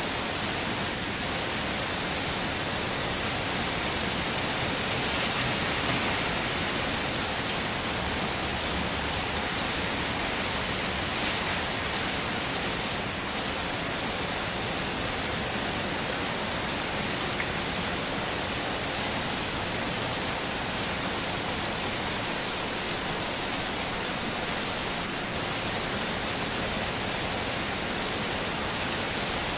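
Steady heavy rain, an even hiss that dips briefly three times, about twelve seconds apart.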